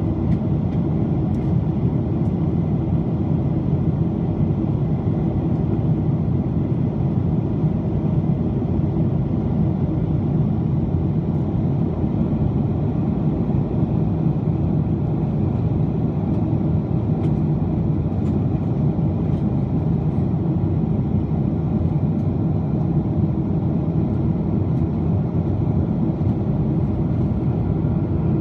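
Steady cabin noise inside a Boeing 777-200 airliner in flight: a constant low rumble of the jet engines and rushing air, heard from a window seat beside the engine.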